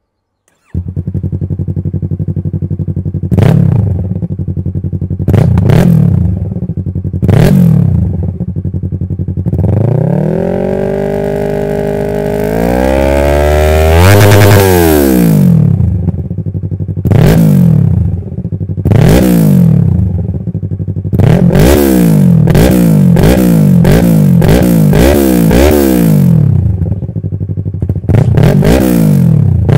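Yamaha R3's 321 cc parallel-twin engine breathing through an M4 Street Slayer exhaust with its baffle removed, revved on the stand: silly loud. A few single throttle blips come first, then a long climb to high revs around the middle that drops away, then a quick run of short blips near the end.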